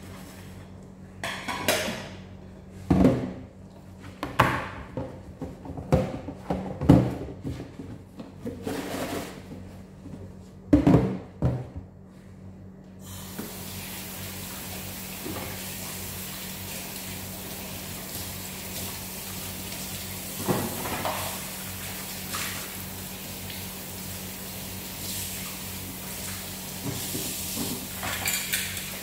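Dishes and utensils clattering and knocking against each other in a stainless-steel sink as they are scrubbed. About thirteen seconds in, the tap opens and water runs steadily, splashing into the sink as they are rinsed.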